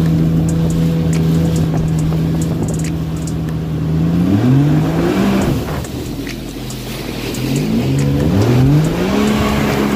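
Yamaha WaveRunner personal watercraft engine running at a steady pitch, rising sharply as the throttle is opened about four seconds in and again in a few climbs near the end, over the rush of water.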